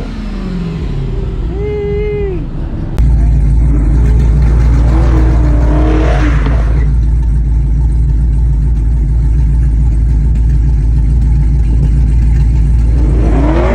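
Car engines revving and passing, over a loud, steady low rumble that comes in suddenly about three seconds in. Revs rise and fall around six seconds in and again near the end.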